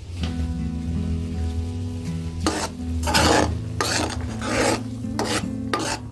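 A spatula stirring and scraping food sautéing in a pan, in about five rasping strokes from about halfway through, over steady background music.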